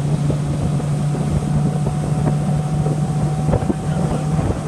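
Motorboat engine running at a steady drone under way, with wind rushing over the microphone and water noise; the drone drops out briefly near the end.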